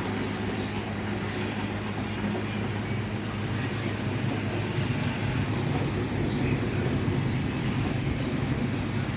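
Steady low drone and hum of a faulty air-conditioning unit in the passenger car of a JR East KuHa E230 commuter train, heard from inside the car; the drone grows a little louder about three seconds in.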